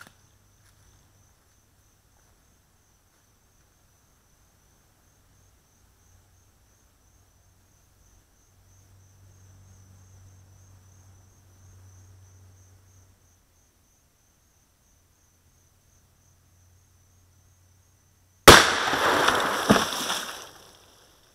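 .45-70 rifle shot hitting a water-filled plastic 5-gallon bucket, with a sharp crack followed by about two seconds of water splashing and spraying, and a second knock about a second after the shot. Before it, a faint steady high insect drone.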